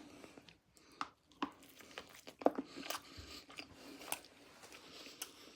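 A person chewing a mouthful of Cajun chicken sandwich, with soft irregular mouth clicks and smacks.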